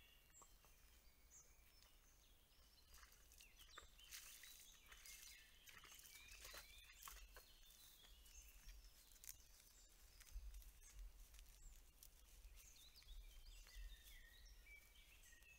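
Faint woodland birdsong: scattered short chirps and trills from small songbirds, busiest about a third of the way in and again near the end, over a low steady rumble, with a few faint clicks in the middle.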